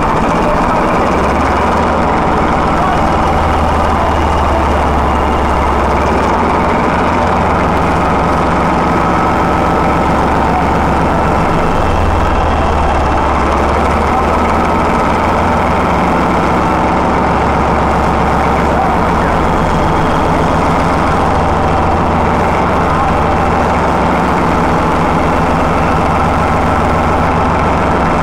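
Class 14 diesel-hydraulic locomotive's Paxman 6YJXL six-cylinder diesel engine running steadily and loudly. It is a freshly installed replacement power unit, newly started after the overhaul.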